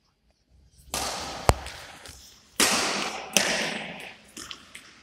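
Badminton racket striking the shuttlecock twice, two sharp cracks about two seconds apart. Each comes amid a burst of rustling, scuffing noise that fades out, and a few lighter taps follow near the end.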